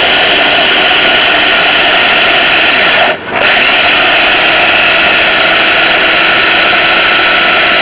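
Electric mini chopper's motor running loud and steady, puréeing cooked pumpkin, stopping for a moment about three seconds in and then starting again.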